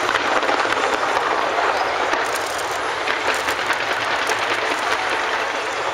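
Dense fireworks barrage going off from a skyscraper: many sharp crackles and pops over a steady rushing noise, with no pause.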